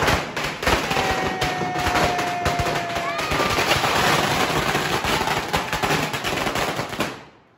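A long string of firecrackers, announced as 2000 crackers, going off in a rapid, continuous run of sharp bangs that dies away about seven seconds in.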